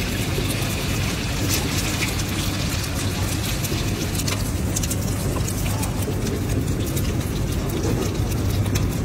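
Eggs frying in hot oil in a large wok, with sharp crackles and spits over a steady low rumble.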